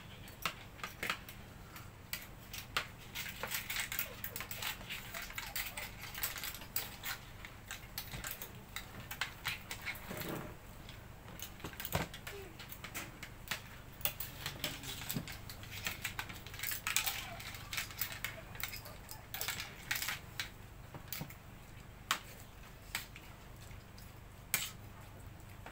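Clam shells and spoons clicking and clinking against bowls and plates as boiled clams are picked out and shelled by hand during a meal; many small irregular clicks throughout.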